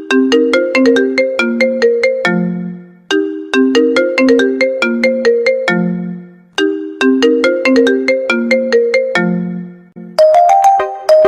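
Phone ringtone: a short, quick melody of bright, decaying notes that ends on a low held note, looping about every three and a half seconds. Near the end a different ringtone tune starts.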